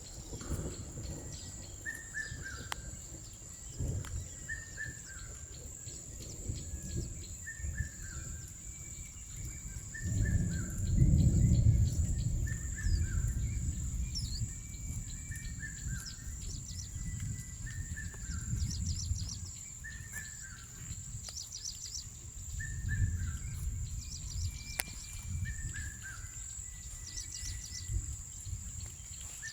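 Birds calling: one bird repeats a short falling call about every two seconds, and quick clusters of high chirps join in during the second half, over a steady high whine. A low rumble swells about ten seconds in and is the loudest sound, with smaller swells later on.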